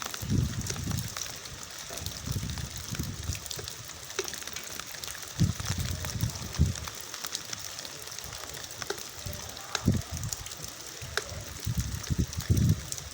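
Rain falling: a steady hiss with many small drop taps, broken by short low rumbles about five times.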